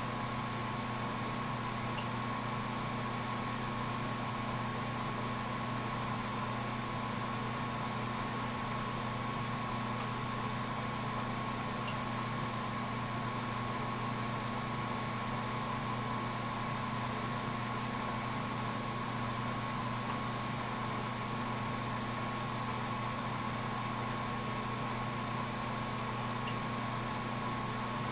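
Glassworking bench torch burning steadily: an even rushing hiss over a steady low hum and a thin high tone, with a few faint ticks.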